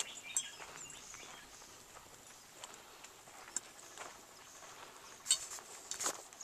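Footsteps crunching now and then on a dry dirt path, heard as a few scattered sharp clicks over quiet outdoor ambience, the loudest two near the end.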